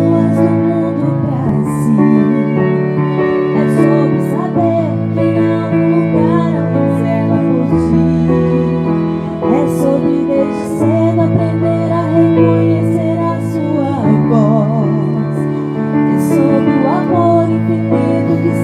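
Live music from a keyboard piano and violins, with a woman singing a slow melody into a microphone over sustained chords that change every few seconds.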